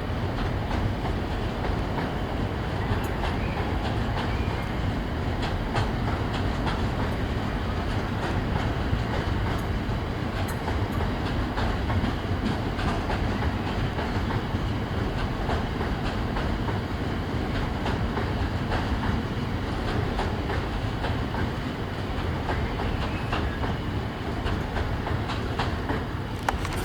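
Train running along the rails close by: a steady rumble with the clatter of wheels over the track.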